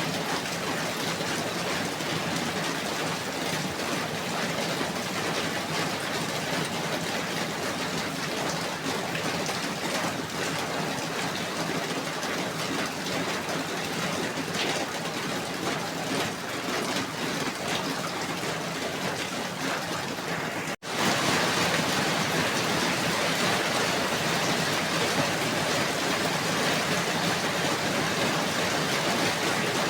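Steady falling rain, a continuous even hiss. It cuts out for an instant about two-thirds of the way through, then resumes a little louder and brighter.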